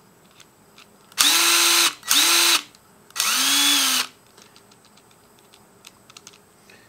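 Ryobi 18V One+ cordless impact driver spinning free with no load in three short trigger pulls: each time the motor whine rises quickly and holds, the third lower in pitch. A few faint clicks follow near the end.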